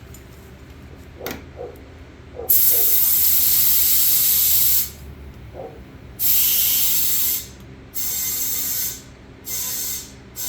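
Compressed air hissing from an air chuck in four bursts, a long one then three shorter ones, as a freshly plugged ATV tire is inflated.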